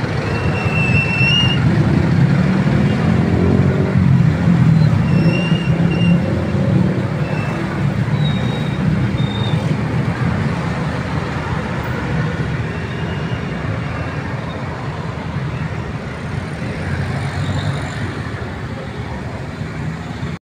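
Dense road traffic of motorcycles and cars pulling away over a railway level crossing as the barriers lift: a crowd of small engines running, loudest in the first few seconds and easing off after. A few short, high-pitched tones sound over it.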